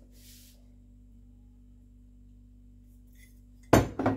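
Quiet kitchen with a steady low hum; near the end, two sharp knocks in quick succession, like something hard set down on the counter.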